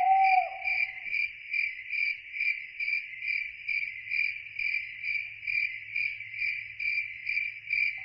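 Crickets chirping in a steady rhythm, about two and a half chirps a second. A wavering whistled call ends about a second in.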